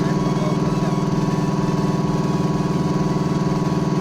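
Electric three-piston air compressor running steadily: a loud, even machine hum with a fast pulsing beat and a thin steady whine above it.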